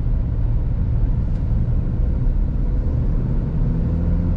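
A car driving on the road: a steady, loud rumble of engine and tyre noise with no change in pace.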